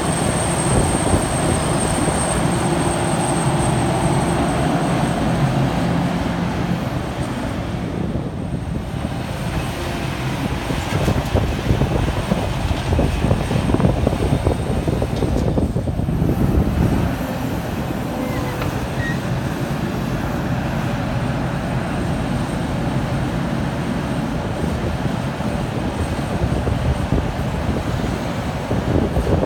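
Large Liebherr R 974 crawler excavator's diesel engine and hydraulics working hard through a dig-and-load cycle. In the middle comes a louder stretch of rushing and rumbling as a bucketful of earth is dumped into a tipper truck's bed.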